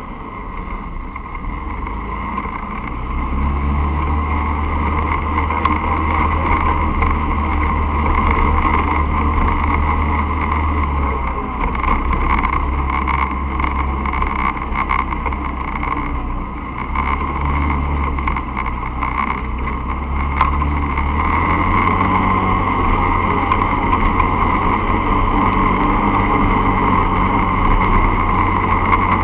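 Enduro dirt bike engine running as the bike rides a rough dirt track, the deep engine sound swelling and easing with the throttle several times. Scattered knocks come from the bumps.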